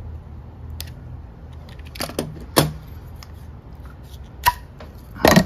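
Several sharp clicks and knocks as PEX-A pipe, slit lengthwise with a utility knife, is cut and worked off the barbs of a brass tee fitting, with the knife and fitting handled. The loudest knocks come about two and a half seconds in and near the end.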